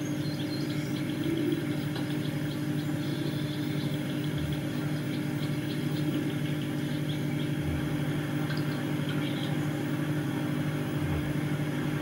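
A steady low hum with a few faint, short high chirps scattered over it, heard through a TV's speaker.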